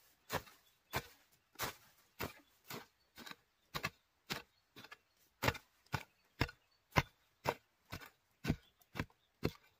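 A short-handled digging mattock chopping into forest soil, a steady rhythm of dull strikes about two a second, as the ground is dug out around winter bamboo shoots.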